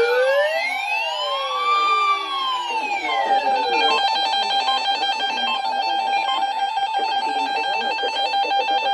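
Electronic alert tones. Several overlapping siren-like tones sweep up and down, then about four seconds in they give way to steady alarm tones with rapidly pulsing higher notes.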